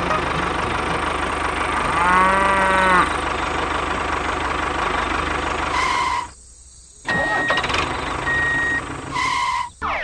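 Tractor engine sound effect running steadily, with a one-second moo-like pitched call about two seconds in. The engine sound cuts out briefly just after six seconds, and short high beeps follow in the last few seconds.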